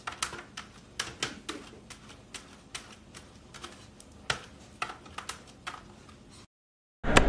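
Golden retriever puppy's claws scratching and tapping at a stainless-steel refrigerator door: irregular sharp clicks and scrapes, a couple a second. They stop a little before the end, and loud music starts right at the end.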